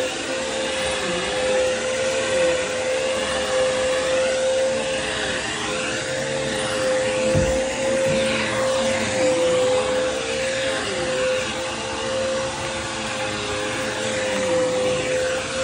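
Vacuum cleaner running steadily on carpet with a constant hum, a lower tone beneath it dipping and recovering every second or so. A single low thump about seven and a half seconds in.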